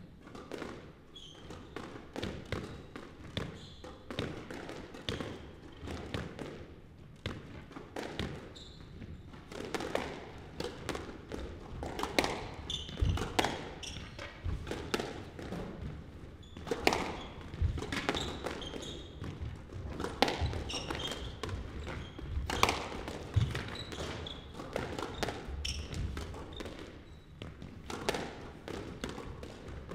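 A squash rally: the ball smacking off the rackets and the court walls again and again at an irregular pace, with the players' shoes squeaking on the wooden floor.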